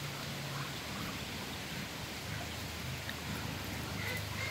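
Steady background hiss with a low hum, and a few faint high peeps from Muscovy ducklings near the end.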